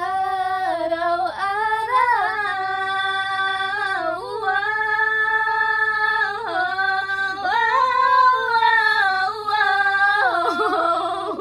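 Two women singing together unaccompanied, a ballad sung in long drawn-out held notes with slides and bends between them.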